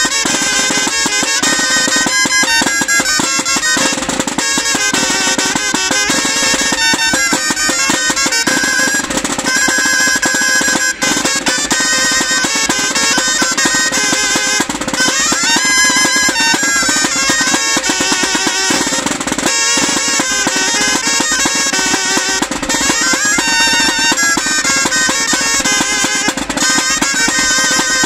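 Background music from a murga street band: a lively tune with drums under a wind-instrument melody.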